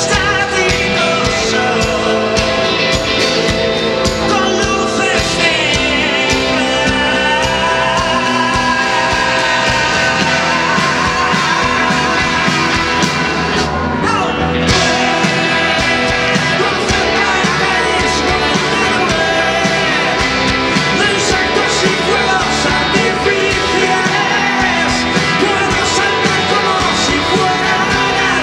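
Live rock band playing loud, with electric guitars, bass, keyboard and drums, heard from the audience.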